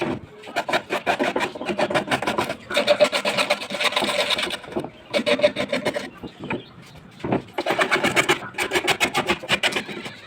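Fast rhythmic rasping strokes of a tool on wood, in runs of one to two seconds with short pauses between.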